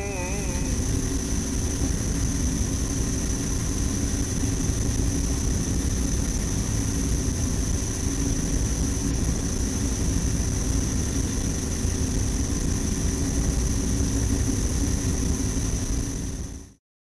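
Steady drone of an aircraft engine: an even rushing noise with a constant high whine and a low hum, unchanging throughout, then cutting off abruptly just before the end.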